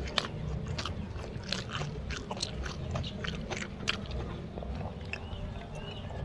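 A man eating fried rice by hand, chewing close to the microphone: an irregular run of clicking chews. A few short high chirps come in near the end.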